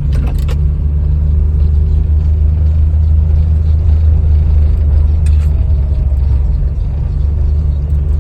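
Steady low rumble of a running vehicle engine, with a few brief clicks or rattles near the start and about five seconds in.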